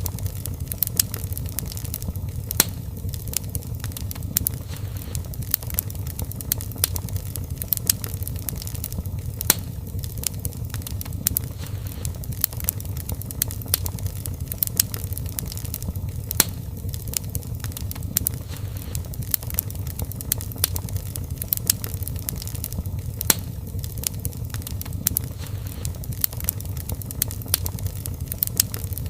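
Wood fire burning in a fireplace, with a steady low rumble of the flames under frequent, irregular crackles and sharp pops.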